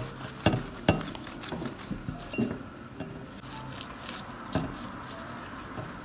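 Silicone pastry brush dabbing oil onto stacked filo pastry sheets in a metal baking tray, with a string of short clicks and knocks of the brush and tray, the sharpest about half a second and a second in and another about four and a half seconds in.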